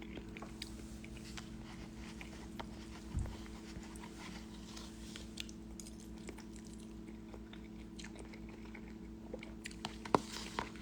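Faint chewing and biting of a person eating ramen, with small scattered clicks and a soft thump about three seconds in, over a steady low hum.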